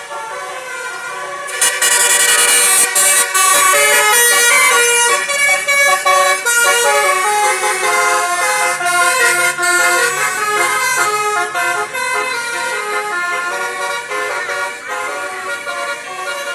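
Bus's Basuri multi-tone 'telolet' air horn playing a melody, a quick run of pitched horn notes stepping up and down. It grows much louder about a second and a half in.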